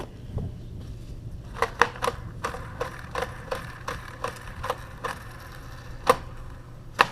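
Sliding door roller wheels spun by hand, freshly cleaned and lubricated with silicone spray, giving a run of irregular clicks, about three a second, over a faint rattle. The clicks begin about a second and a half in.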